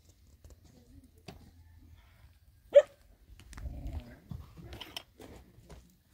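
A single short, loud animal call about three seconds in, with faint knocks and rustling around it.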